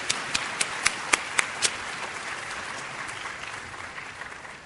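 Audience applauding, with several sharp individual claps standing out over the first second and a half, then the applause thins out and dies away.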